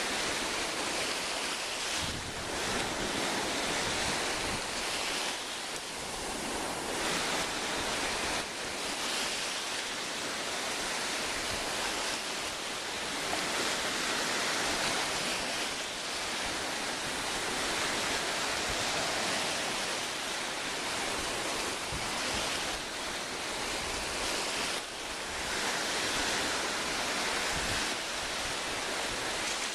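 Sea waves washing onto the shore in a continuous surf, swelling and easing every few seconds, with some wind on the microphone.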